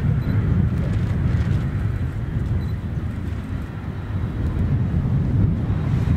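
Steady low rumble of aircraft engine noise, mixed with wind on the microphone.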